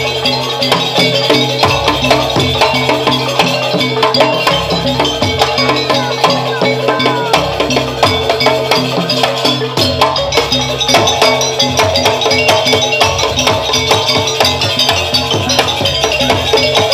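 Live Javanese gamelan-style ensemble playing jaranan music: drums and struck metal percussion keep a busy, steady rhythm over sustained ringing tones.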